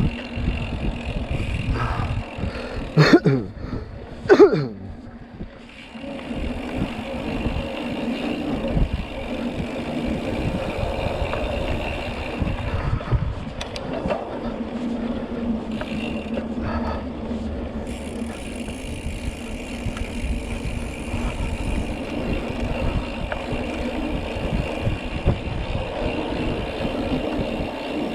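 Mountain bike riding on a dirt trail: a steady rumble of tyres, rattling bike and wind on the microphone. Two short, loud sounds with a sweeping pitch come about three and four and a half seconds in.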